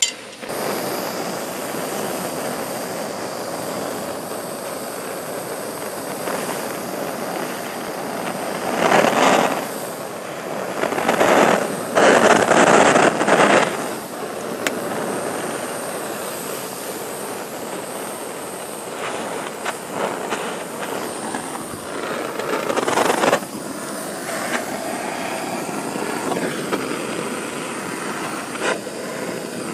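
Handheld propane torch burning with a steady rushing hiss, swelling louder a few times, about nine, twelve and twenty-three seconds in, as the flame is swept along the railing.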